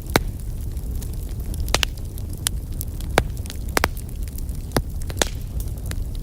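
Wood fire burning in a fireplace: a steady low rumble of the flames with irregular sharp crackles and pops from the burning logs, several in quick succession.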